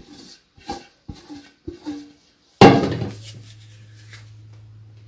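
A wooden spoon knocks and scrapes bread dough out of a stainless steel mixing bowl in a few quick taps. About two and a half seconds in, the metal bowl is set down hard on the wooden board with a loud clank that rings and fades, and a low steady hum follows.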